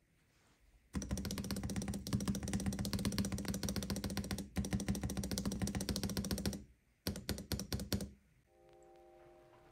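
Shift-key stabilizer, wire-balanced and lubed with Krytox 205g0 and Super Lube, pressed through its keycap on a bare plate. It clacks in a fast, dense run for several seconds, then gives about half a dozen slower single presses. A soft chime of music comes in near the end.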